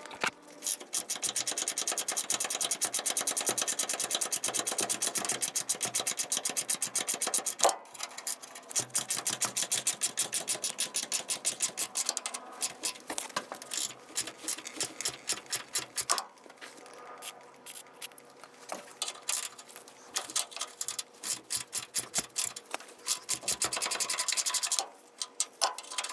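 Hand socket ratchet clicking fast and steadily as a nut is worked off a bolt, then in shorter uneven runs with brief pauses.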